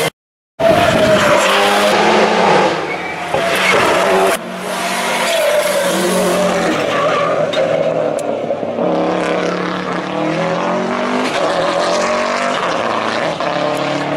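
Rally car engines revving hard as the cars power through bends, the pitch climbing and dropping back again and again with gear changes. There is a short gap in the sound just after the start, and an abrupt jump to another car about four seconds in.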